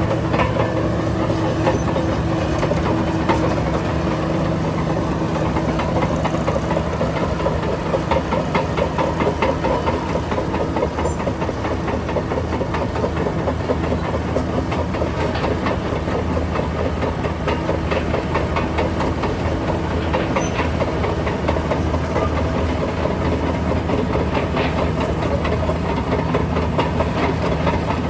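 Heavy diesel earthmoving machinery running steadily with a dense, fast metallic rattle over a low engine note.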